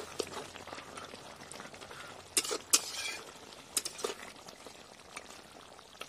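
A ladle stirring thick chicken curry in a metal kadai, knocking and scraping against the pan several times about halfway through, with the curry bubbling faintly.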